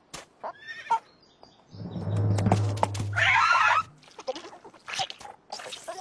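Cartoon sound effects for an animated bird: a low hum comes in about two seconds in, and a wavering animal-like cry sounds over it about a second later. Short knocks and clicks are scattered before and after.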